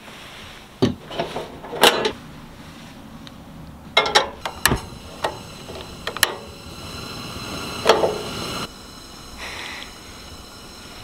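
Gear being handled on a small sailboat: scattered knocks, clunks and sharp clicks, a few close together about four seconds in, over a faint steady hiss that grows a little louder near the end.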